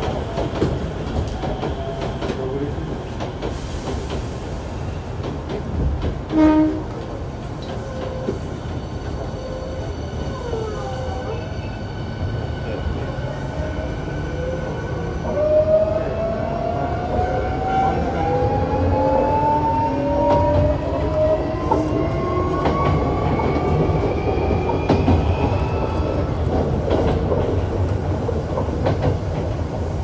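Onboard running sound of a Hankyu 7300 series electric train: a steady rumble of the wheels on the rails, with a short loud sound about six and a half seconds in. From about halfway, the Toyo IGBT VVVF inverter and traction motors whine in several tones that climb steadily in pitch as the train accelerates.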